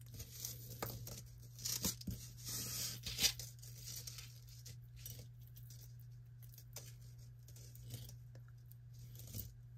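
Metal necklace chains rustling and clinking as they are pulled from a tangle and untangled by hand, busiest in the first few seconds and fainter after. A low steady hum runs underneath.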